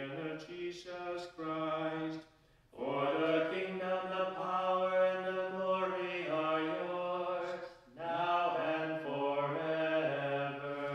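A man's voice chanting a prayer of the Catholic Mass in long, evenly held notes, in three phrases with short pauses for breath between them.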